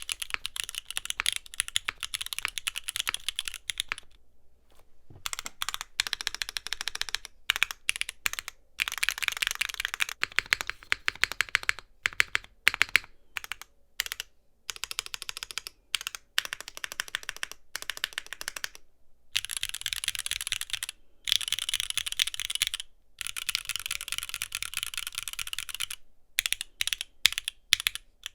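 Fast typing on a mechanical keyboard fitted with Gateron Khonsu switches, which have full POM housings and stems that bottom out on the housing rails. The keystrokes are sharp clicks that come in runs, broken by several short pauses.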